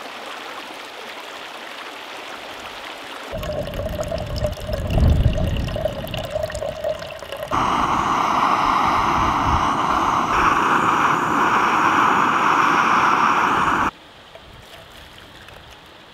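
A stream running over stones, then a few seconds of low rumbling. Then the loudest part: a gas canister stove (Alpkit Brukit) burning under its pot with a strong, steady hiss for about six seconds, which cuts off abruptly.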